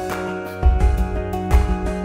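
Background music: held instrumental notes over a repeating low beat.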